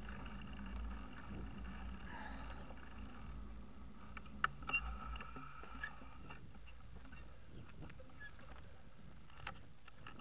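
Mountain bike rolling on tarmac: a low tyre and wind rumble that fades as the bike slows to a stop, with a few sharp clicks in the middle and one more near the end.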